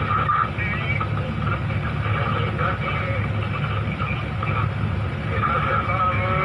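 Heavy diesel engine of an excavator running steadily, with indistinct voices talking over it.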